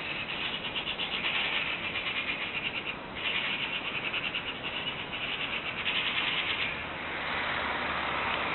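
Small birds chirping in rapid, evenly pulsed trills, in three bouts over the first seven seconds, then a steady background rush.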